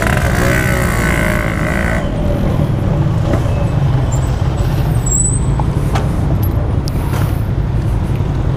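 Two-stroke motorcycle on the move: a steady low rumble of engine and road noise heard from the rider's position.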